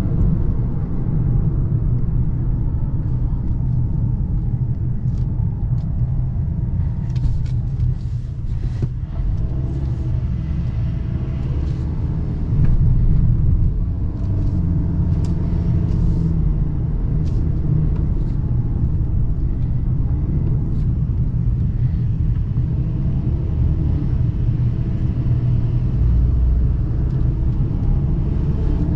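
2023 Ford Maverick's 2.0-litre EcoBoost turbocharged four-cylinder running on the move, a steady low rumble of engine and road with a few short clicks in the middle. Near the end the engine note rises as the truck accelerates.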